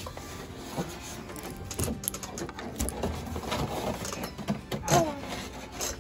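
Light, irregular clicking and rattling of a chainsaw bar and chain being handled and turned over; a child's voice briefly about five seconds in.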